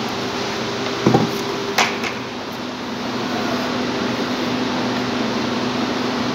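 Steady hum of running machinery with a faint held tone in it, broken by two brief knocks about one and two seconds in.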